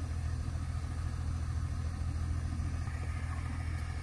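An engine idling with a steady, even low drone.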